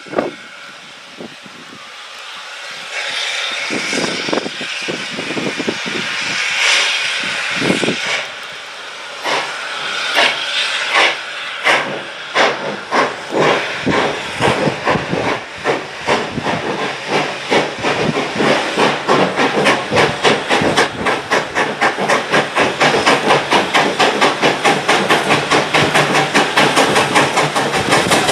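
Steam locomotive starting a train: a hiss of steam at first, then exhaust chuffs that come faster and louder as it picks up speed.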